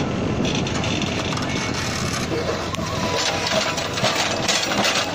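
Case 770 backhoe loader's diesel engine running under load as the backhoe arm digs into rocky soil, with scraping and knocking of stone against the bucket in the second half.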